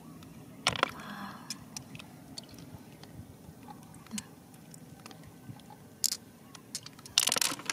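Small wet handling sounds at the water's edge: scattered clicks and drips as a wet hand turns a glass gem over in the shallows, with a louder burst of noise near the end.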